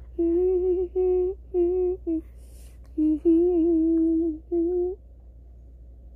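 A person humming a tune in a run of short held notes, stopping about five seconds in.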